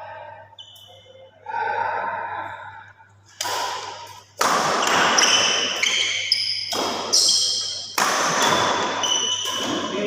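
Game play on an indoor court: ball thumps and many short, high squeaks of shoes on the floor, with loud stretches of noise echoing in the hall.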